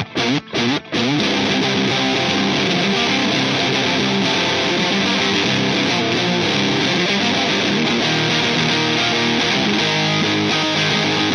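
Fender Stratocaster played through a Gone Fishing Effects Booooom/Blast pedal cranked way up: a heavy, saturated fuzz-distortion guitar riff. It has three short, abrupt stops in the first second, then a continuous wall of distorted chords.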